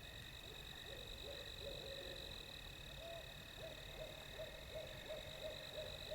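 Barred owl hooting: a quick run of short hoots starting about a second in, stepping up slightly in pitch partway through.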